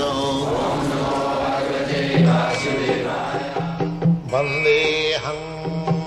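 Indian devotional music: a chanting voice at first, then from about two seconds in a steady low drone with melodic notes above it.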